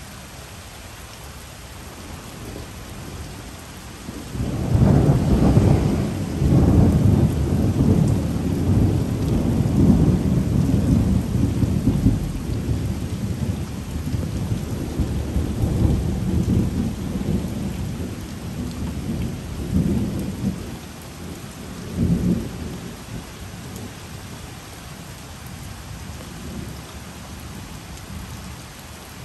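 Thunder rolling over steady rain. A loud, low rumble breaks in about four seconds in and rolls on for over ten seconds, slowly fading, with a shorter peal a little past twenty seconds.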